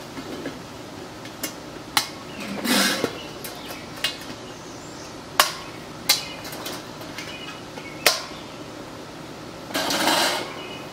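Small metal kettle grill being put together by hand: a handful of sharp metallic clanks and clinks as its parts and lid are set in place, with two longer scraping rubs of metal on metal, about three seconds in and near the end.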